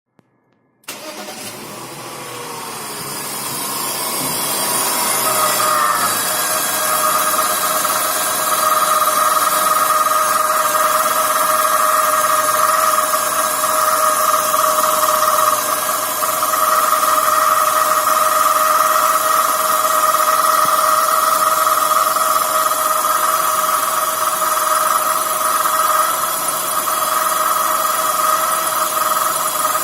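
BMW E46 320Ci's M52TUB20 straight-six running from a cold start, with a steady high whine from its worn water pump, whose shaft has play. The sound comes in about a second in, rises over the first few seconds, then holds steady.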